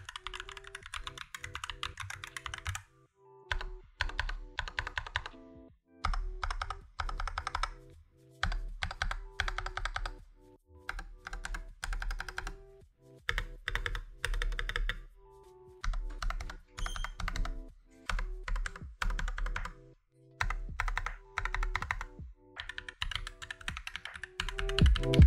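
Keys clattering on a MonsGeek MG108 full-size mechanical keyboard with Akko CS switches, in bursts of rapid keystrokes with short pauses between them. After a pause a few seconds in, the presses are of the stabilized long keys. Background music plays underneath.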